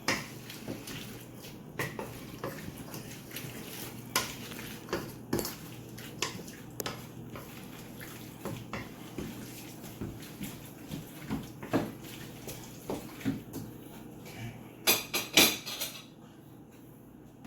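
A utensil stirring a wet black bean and corn salsa in a bowl, with irregular clinks and scrapes against the bowl. A quick run of louder clinks comes about fifteen seconds in.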